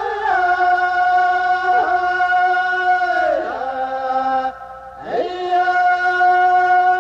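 Outro music: a chanting voice over a sustained drone, sliding between notes, briefly dropping away about four and a half seconds in.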